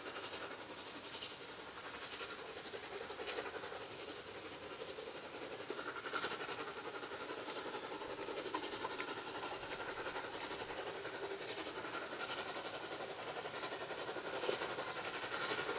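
A small steam locomotive working along the line: a steady running noise with a few short knocks, growing louder near the end.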